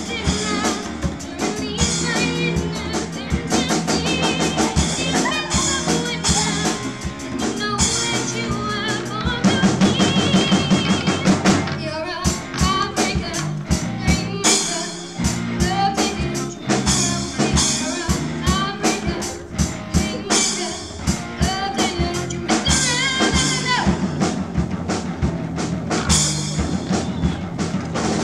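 Live rock band playing a song: drum kit, electric guitar and bass guitar through amplifiers, with a girl singing lead into a microphone.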